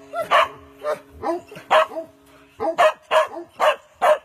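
A hound barking in a quick run of short, loud barks, about two or three a second, with a brief gap near the middle.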